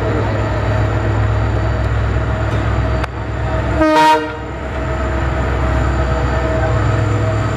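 WDM3A diesel-electric locomotive's ALCO 16-cylinder engine running with a steady low rumble as it moves past, with one short horn blast about four seconds in.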